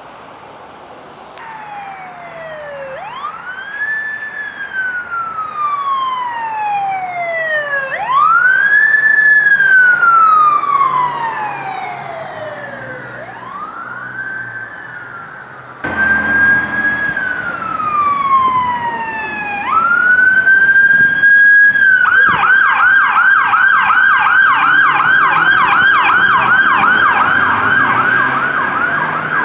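Emergency vehicle siren sounding in slow wail, long rising and falling sweeps, then switching about two-thirds of the way through to a fast yelp that warbles about three times a second.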